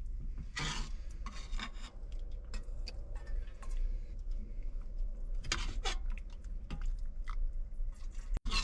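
Scattered clinks, scrapes and brief rustles of a bowl and utensils as chicken soup is dished out, over a low steady hum.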